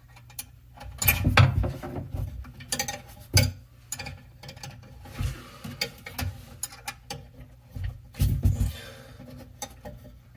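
A hand tool works the pivot nut of a bathroom sink's pop-up drain lever loose: irregular clicks and knocks with a few duller thumps, and a brief scrape about halfway through.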